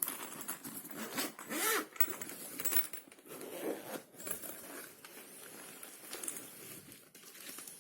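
Zipper of a jump starter's carrying case being pulled open in several short pulls, with rustling and handling noise from the case.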